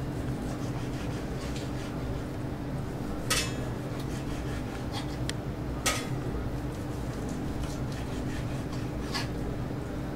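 A slicing knife cutting through a grilled rib of beef, its blade knocking sharply on the cutting board as each slice finishes: three clear clicks a few seconds apart, with fainter scrapes and ticks between, over a steady low hum.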